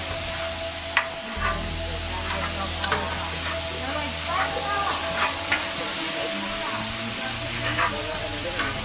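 Shaved beef sizzling on a hot steel flat-top griddle while a bench scraper chops and scrapes it against the plate, with sharp metal clacks at irregular intervals, about one a second.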